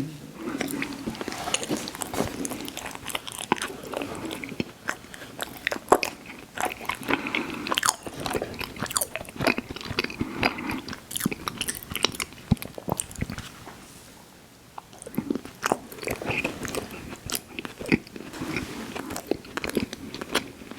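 Close-miked chewing of an ice cream sandwich: rapid crunchy crackles over wet mouth sounds, easing off briefly a little past the middle before picking up again.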